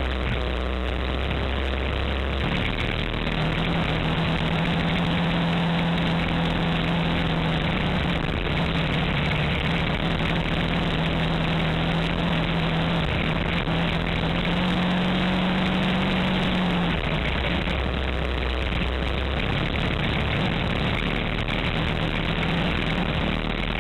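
Kawasaki Teryx4 800 side-by-side's V-twin engine running steadily while driving along a dirt road, heard from the open rear seat with road and wind noise. A steady hum in the engine note climbs a little and then drops away about two-thirds of the way through.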